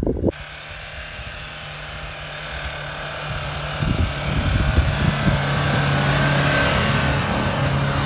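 Toyota Hilux pickup's engine working hard at steady revs as it ploughs through deep snow. It grows louder as the truck approaches, with a rushing hiss of snow thrown off the tyres and low rumbling knocks from about four seconds in.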